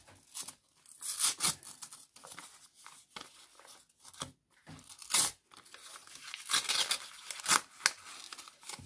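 Handmade paper surprise packet being torn open along its notch and unfolded: several separate rips of thin paper, with crinkling in between.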